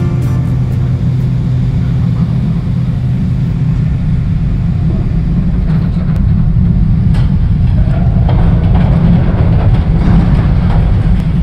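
Heavy diesel demolition machinery running with a loud, steady low rumble, with a few sharp knocks about six and seven seconds in and more clattering from about eight seconds on.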